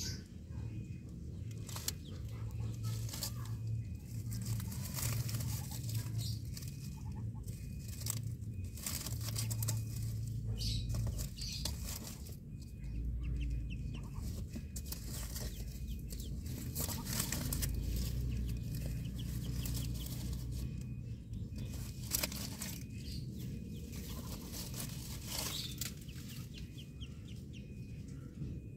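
Chickens clucking in the background, with dry leaves in a nest rustling and crackling as a hand moves among the eggs, over a steady low rumble.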